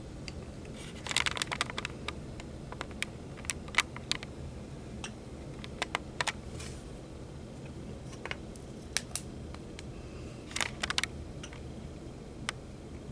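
Scattered light clicks and taps, some in small quick clusters, from hands handling a plastic critter-keeper tank and the camera held up close, over a low steady background.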